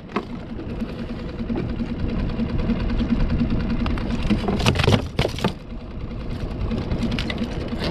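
Small outboard motor on a skiff running with a fast mechanical rattle. Two brief, louder noisy bursts come about five seconds in.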